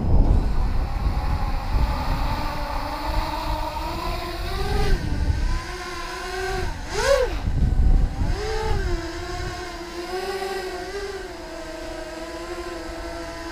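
6-inch racing quadcopter's brushless motors spinning 6x4 bullnose propellers, a steady whine taking off and hovering. The pitch swoops sharply up and down twice in the middle with throttle punches, then holds steady, over low rumbling in the first half.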